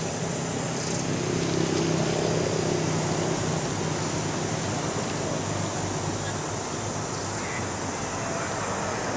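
Steady outdoor background noise with a low, even hum and no distinct events.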